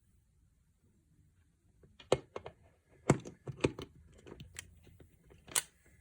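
Irregular sharp clicks and taps starting about two seconds in, a dozen or so, with a few loud ones, the last loud one near the end.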